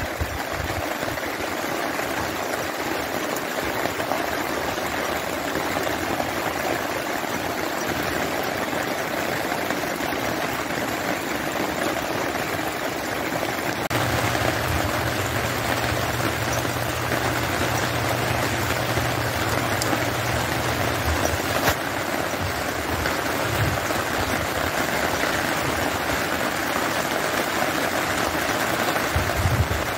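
Steady rain falling on wet ground and standing water, an even hiss. A low rumble joins it for several seconds around the middle.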